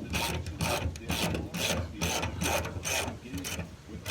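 Hand ratchet wrench being worked back and forth to turn a truck bed bolt, clicking and rasping in regular strokes about two to three times a second.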